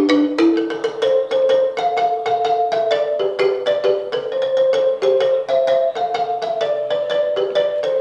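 Wooden marimba played with mallets: a fast, steady stream of struck notes making a repeating melodic pattern in the instrument's middle range.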